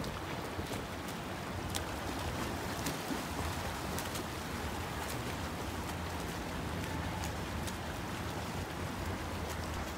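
Steady wash of pool water and wind on the microphone, with light splashing from a swimmer's freestyle strokes and a few faint scattered ticks.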